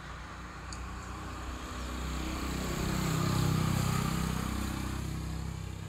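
A motor vehicle passing on the road: its engine grows louder to a peak about three and a half seconds in, then fades away.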